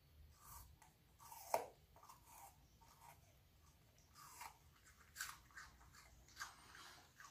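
Welsh Corgi puppy crunching and chewing pieces of raw apple in irregular bites, the loudest crunch about one and a half seconds in.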